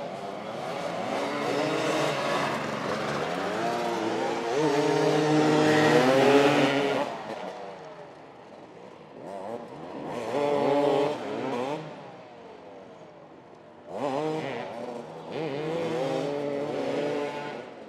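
Motoball motorcycles revving and accelerating, their engine notes rising and falling in pitch. Loudest about five to seven seconds in, with further bursts about ten and fourteen seconds in.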